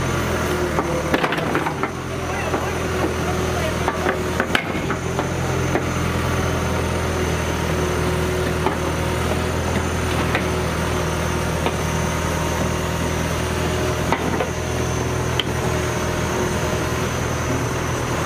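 Engine running steadily at a constant speed, with scattered knocks and clanks, a cluster of them in the first few seconds.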